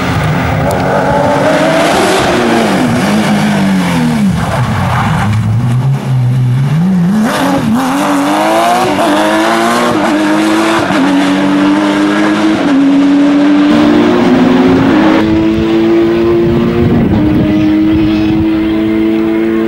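Rally car engine at full speed: its pitch falls as the car brakes and shifts down, then rises sharply and climbs through a series of gear changes as it accelerates hard away.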